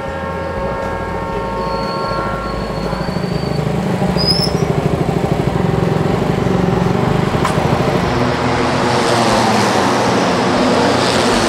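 A J-GP3 racing motorcycle's 250cc single-cylinder four-stroke engine running at low revs as the bike rolls into the pit box, with a fast, even, pulsing beat. A steady tone is heard in the first three seconds.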